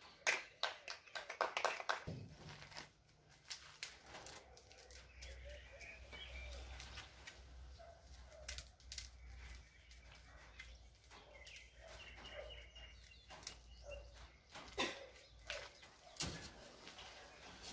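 Scattered light clicks and rustles of a plastic string-trimmer head and nylon trimmer line being handled and wound onto the spool by hand, with faint bird calls in the background.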